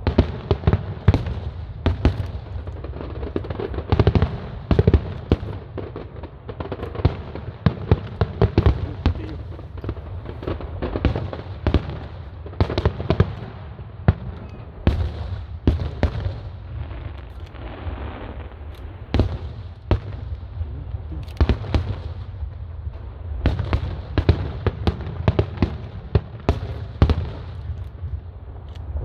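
Aerial fireworks display going off without pause: a dense run of bangs and crackling reports over a low rumble, with quick clusters of several shells bursting close together.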